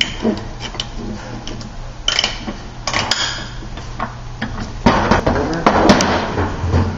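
Steel transmission parts of a 4L80E gear assembly clinking, knocking and scraping as they are turned over and handled, with scattered sharp clicks and a longer stretch of clatter near the end.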